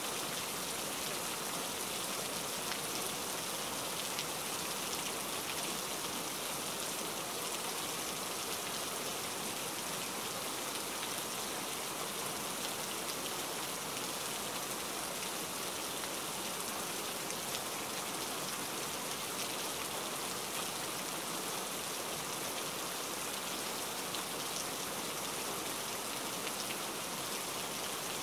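Steady rain falling, an even hiss with faint scattered ticks of drops.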